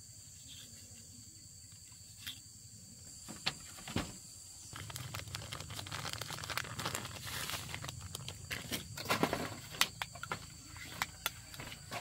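Rustling and crackling of leaves and twigs with scattered sharp knocks, getting busier about five seconds in, over a steady high-pitched insect drone.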